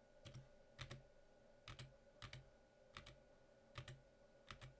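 Computer keyboard being typed on slowly, one key at a time: faint, separate key clicks at an uneven pace of one or two a second.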